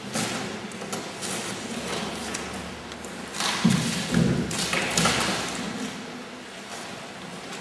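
A white paper-covered cardboard cube being torn open by hand: bursts of ripping and crackling paper, with a thump a little over three and a half seconds in.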